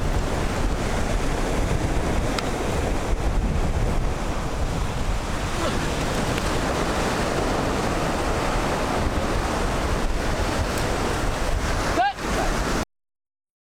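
Surf washing in over a sandy beach, a steady rush of breaking waves with wind buffeting the microphone. There is a brief voice about twelve seconds in, and then the sound cuts off suddenly.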